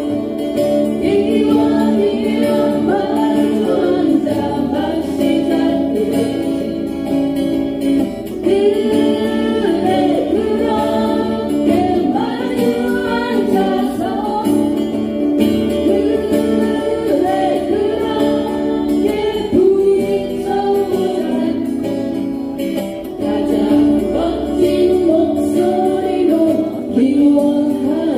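Several acoustic guitars strummed together, with singing carrying the melody over them.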